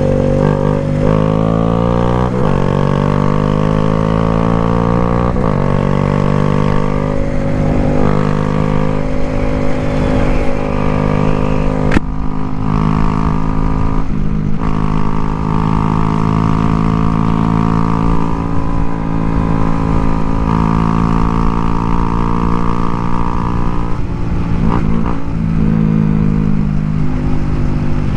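Cruiser motorcycle engine running under way, its pitch climbing and dropping through gear changes for the first several seconds, then holding fairly steady at cruising speed, with a steady low rumble underneath.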